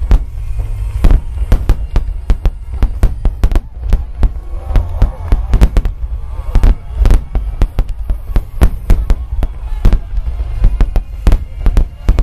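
Dense barrage of aerial fireworks shells bursting: loud booms several a second over a continuous low rumble of overlapping blasts.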